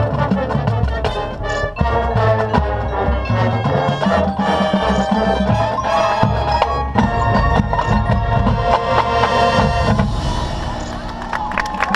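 Drum and bugle corps playing: sustained brass chords over marching percussion. The sound eases off slightly near the end.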